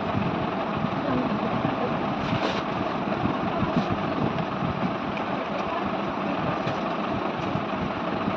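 Steady mechanical drone with a constant hum tone running throughout, with a faint brief hiss about two and a half seconds in.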